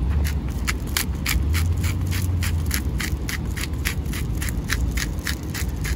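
Pepper being ground from a hand pepper mill: a steady run of short, crunchy grinding strokes, about four a second.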